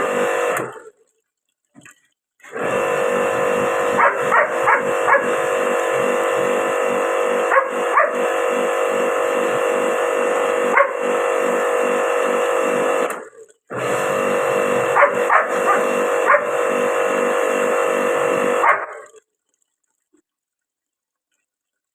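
Electric pressure-washer pump running with a steady whine and a fast pulsing throb, stopping and starting again: it cuts out briefly near the start, runs about ten seconds, pauses for a moment and runs about five seconds more before shutting off.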